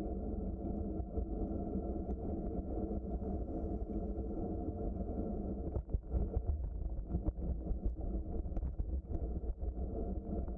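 Bicycle riding along a trail: the tyres and frame make a steady low rumble, with a run of knocks and rattles from about six seconds in.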